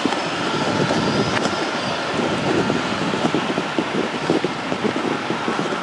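Wind buffeting the microphone over a steady background rumble, with a faint high whine held throughout.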